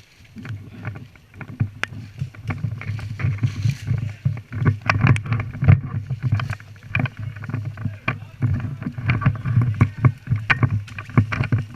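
Irregular crunching and rustling from someone moving on foot through brush, over a fluctuating low rumble of wind and handling noise on a body-worn microphone.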